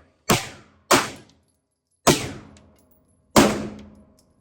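Four gunshots at uneven spacing, each a sharp crack that dies away over about half a second.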